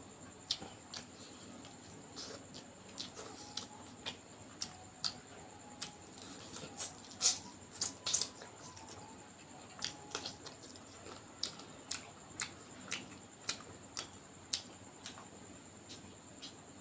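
Close-up eating sounds: irregular wet mouth clicks and lip smacks of someone chewing a mouthful of duck curry and rice, a few a second, loudest in a cluster about seven seconds in.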